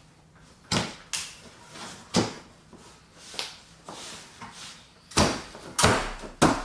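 Irregular series of sharp knocks, about seven, unevenly spaced, with the loudest ones coming close together near the end.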